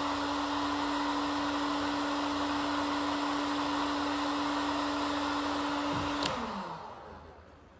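Electric heat gun blowing hot air with a steady motor hum. About six seconds in it is switched off with a click and the fan winds down.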